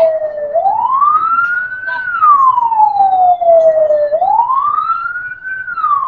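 Fire engine siren wailing: a loud tone that rises over about a second and a half, then falls more slowly, repeating about every three and a half seconds.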